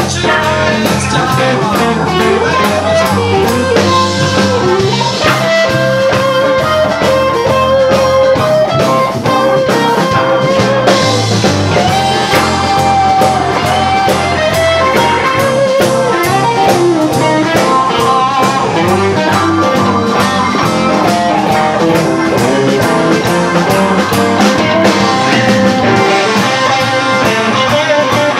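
Live electric blues band playing an instrumental passage: an electric guitar lead with bent, wavering notes over bass guitar and drums.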